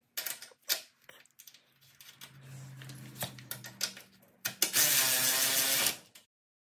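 A socket ratchet wrench clicking rapidly for about a second near the end as it spins a nut onto a bolt. Before that come a few scattered sharp clicks of small metal parts being handled.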